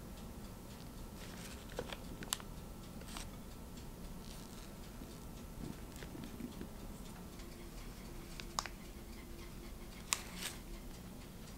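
Quiet kitchen handling sounds as soft cookie batter is scraped with a silicone spatula into a plastic piping bag standing in a cup, and the filled bag is pressed down: soft scraping and plastic rustling, with a few short sharp taps and clicks.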